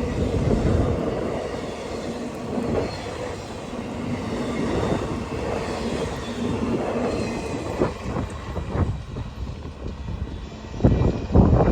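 Norfolk Southern freight train rolling past, the cars' wheels on the rails making a steady rumble that thins out in the last few seconds into scattered separate knocks.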